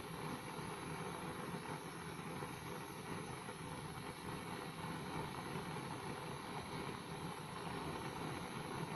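Gas cartridge blowtorch burning with a steady, unbroken rushing hiss of the flame.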